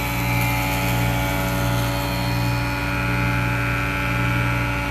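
Woodshop jointer running with a steady motor hum.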